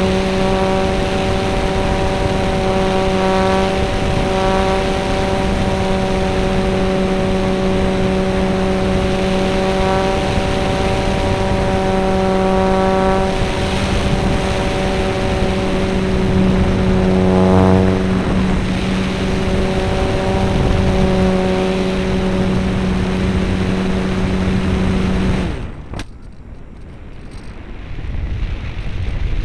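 Onboard sound of an Alpha 1500 model aeroplane's motor and propeller running at a steady high drone, its pitch wavering briefly about 17 seconds in. About 25 seconds in the motor noise cuts off suddenly with a click, leaving only the rush of air over the gliding plane, growing louder near the end.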